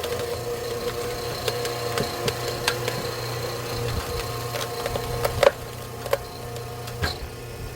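Electric-motor-driven hydraulic log splitter running with a steady hum while its ram forces a thick pine log onto the wedge, the wood giving off repeated sharp cracks and creaks. A loud crack comes about five and a half seconds in, after which the splitter runs quieter.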